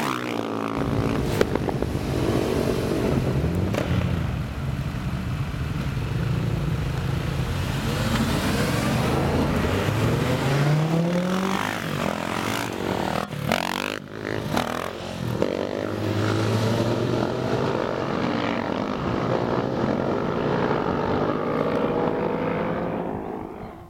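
Several supermoto motorcycles and a car passing at speed one after another, engines revving up and dropping in pitch as each goes by. The engine noise fades out near the end.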